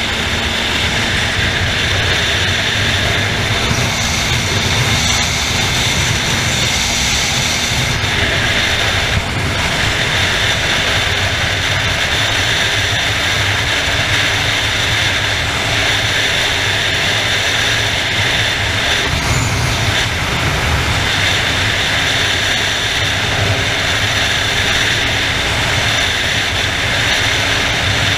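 Motorcycle cruising at highway speed: a steady rush of wind over the onboard microphone, with the engine's even drone underneath.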